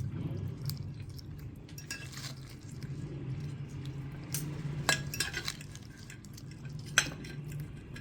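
Cutlery and dishes clinking during a meal: scattered light clinks, with two sharper ones about five and seven seconds in, over a low steady hum.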